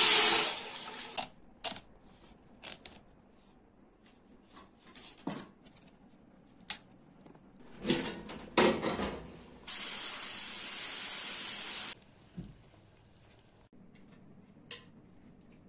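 Kitchen cooking sounds: water poured from a jug into a copper pot at the start, scattered clinks and knocks of pots and utensils, and a clatter as a wooden lid is lifted off the copper pot about eight seconds in. A steady hiss follows for about two seconds.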